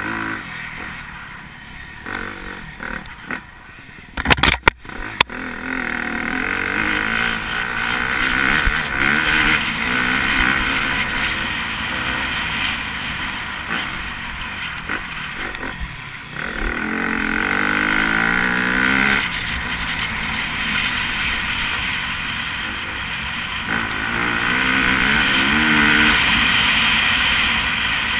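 Dirt bike engine racing over a dirt track, repeatedly rising in pitch as it accelerates and dropping as it shifts or backs off. A few sharp knocks come about four to five seconds in.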